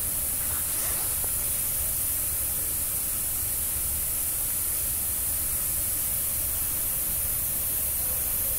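Steady background hiss with a low hum underneath, unchanging throughout, with no distinct mechanical events.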